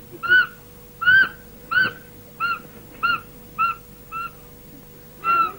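An animal giving a series of short, high calls, each rising and falling in pitch, about nine in all, with a pause before the last one. A faint steady hum runs underneath.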